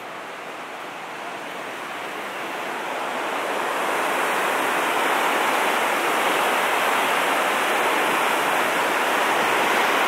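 Rushing water of the fast-flowing Mur river, a steady hiss that grows louder over the first few seconds and then holds.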